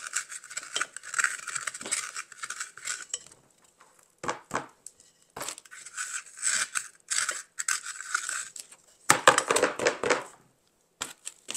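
Scissor points gouging a hole in a styrofoam block inside a terracotta pot: scratchy, crunching scraping in bursts. About nine seconds in comes a louder clatter as the clay pot is tipped over the table to empty out the crumbs.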